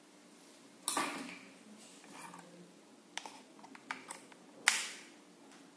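Plastic clicks and knocks as a smartphone and a small clip are fitted into a FOTRIC 220 thermal camera's phone holder: a few sharp clicks, the loudest near the end.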